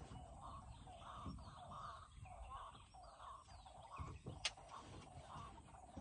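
Faint forest ambience of birds calling: one call repeats about twice a second, with thinner chirps above it, over a low rumble. A single sharp click sounds about four and a half seconds in.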